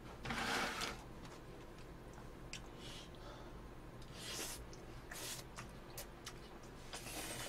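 A man slurping spaghetti strands and chewing, with a few short slurps and faint clicks in between.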